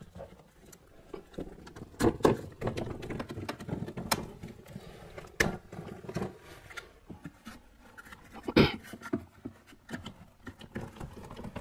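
Scattered knocks and clicks of painted frame strips being handled and pressed into place around a plastic glass pane, with a louder knock about two-thirds of the way through.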